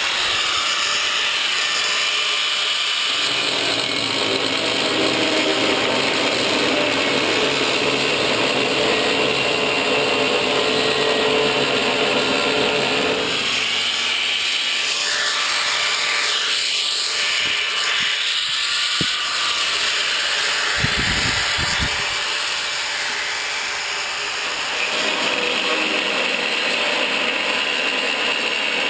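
Angle grinder running without a break, its abrasive disc cutting through 1/8-inch mild steel sheet. The motor's tone shifts a few times as the load on the disc changes.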